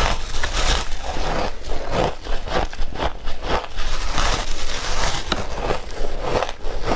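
Close-miked biting and chewing of frozen shaved ice chunks, a rapid, irregular run of crisp crunches and crackles.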